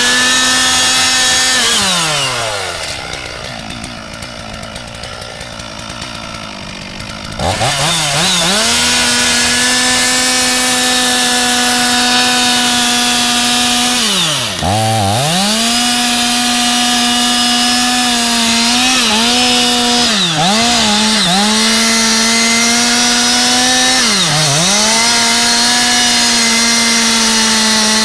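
Large two-stroke chainsaw with a long bar cutting into a big tree trunk at full throttle. About two seconds in, the throttle is let off and the engine falls to idle for about five seconds, then revs straight back up to full speed; later its pitch dips briefly a few times before recovering.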